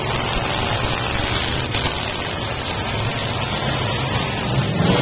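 Several old derby cars' engines running together, loud and rough.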